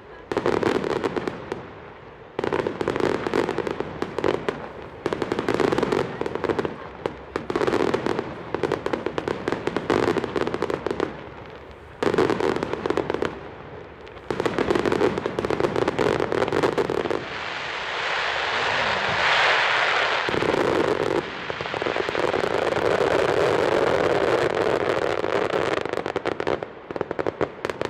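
Fireworks display: aerial shells bursting in dense crackling volleys, each a second or two long with short breaks between. Past the middle a steady rushing hiss takes over for a few seconds, followed by an unbroken stretch of crackle and bangs.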